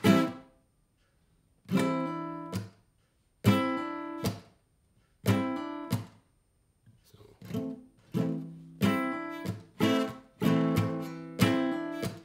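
Acoustic guitar strummed on an A minor chord, thumb-over-the-neck voicing at the fifth fret, in a stop-start rhythm. Strums on the bass strings are cut off short by releasing the fretting hand, mixed with a hammer-on on the G string and muted hits. The strums come in short groups separated by silences at first, then run on more continuously from about seven seconds in.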